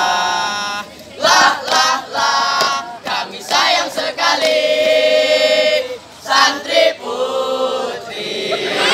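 A group of boys singing a scout yel-yel in unison, unaccompanied, in short sung phrases with one long held note midway.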